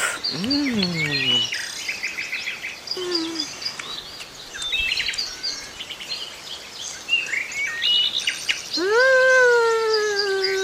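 Birds chirping and calling, many short chirps all through. There is a brief pitched call in the first second, and near the end a louder long call rises and then slowly falls.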